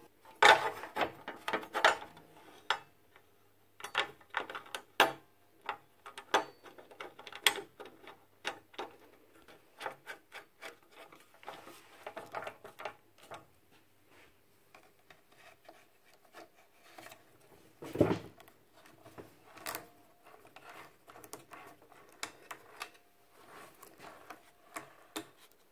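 Scattered light clicks, taps and rubbing of metal parts and hand tools being handled while reassembling a Dewalt DW718 miter saw, with one heavier knock about eighteen seconds in.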